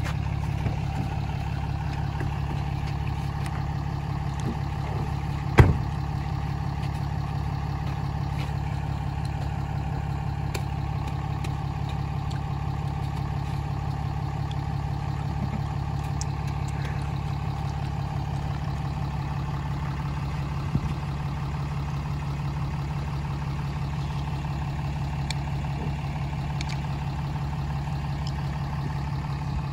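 Pickup truck engine idling steadily with a low hum. A single sharp knock about five and a half seconds in is the loudest sound, and a fainter knock comes later.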